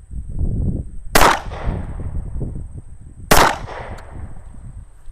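Two pistol shots about two seconds apart, each a sharp crack followed by a short fading echo.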